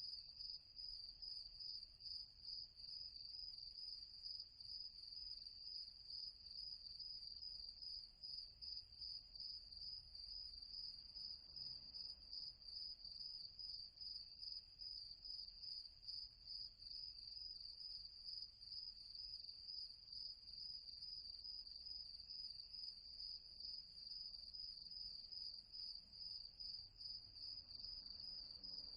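Recorded sound effect of crickets chirping: a faint, steady, fast-pulsing high trill with no pause.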